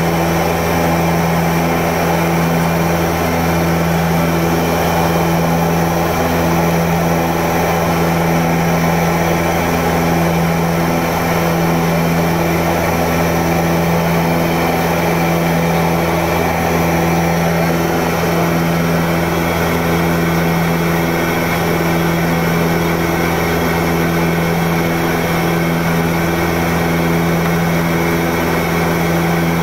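Antonov An-24B's twin Ivchenko AI-24 turboprop engines and propellers droning steadily in flight, heard from inside the aircraft: a loud, even low hum with a faint regular throb.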